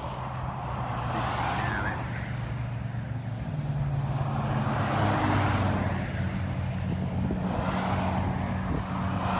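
Highway traffic: cars and a van pass one after another, each bringing a swell of tyre noise that rises and fades, over a steady low engine drone.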